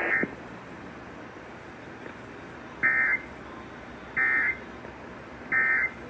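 Emergency Alert System end-of-message code: three short bursts of digital data warble, about a second apart, starting about three seconds in, marking the end of a relayed flash flood warning. One similar short burst comes right at the start, and a steady radio hiss runs under it all.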